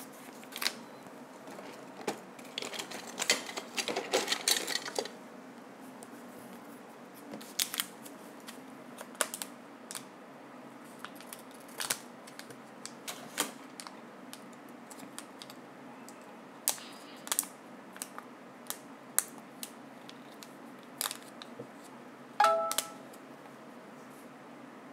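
Scattered small clicks and taps of tools and parts being handled during soldering work on a handheld console's circuit board, busiest a few seconds in, over a faint steady hiss. A short squeak stands out near the end.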